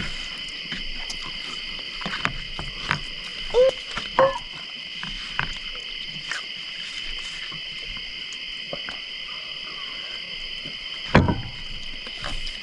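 Steady chorus of crickets, a continuous high buzz. Scattered light clicks and knocks sound over it, with two short calls about four seconds in and a louder thump near the end.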